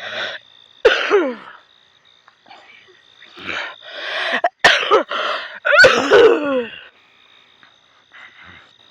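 People's voices making non-word sounds: two loud shouts that fall in pitch, about a second in and again near six seconds, with a few sharp cracks between them over a steady high whine.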